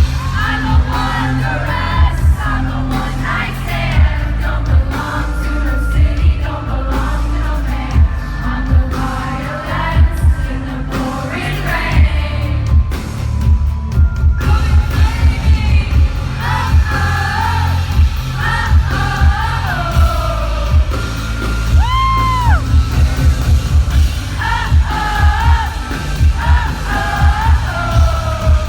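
Live pop concert heard from the audience: a woman singing over a loud band track with a heavy, steady kick-drum beat. About two-thirds of the way through she holds one note that bends up and back down.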